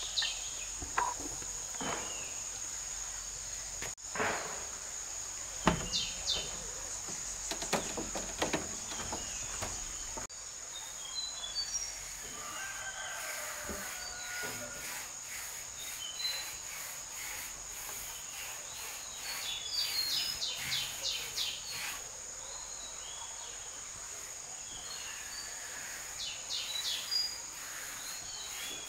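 Steady high-pitched insect drone, likely crickets or cicadas, with birds giving short rapid chirps in bursts and a few scattered knocks.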